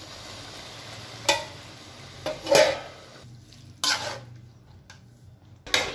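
Metal spoon stirring Maggi noodles in a metal kadai: four short scrapes against the pan, one to two seconds apart, over a steady sizzle that drops away about three seconds in.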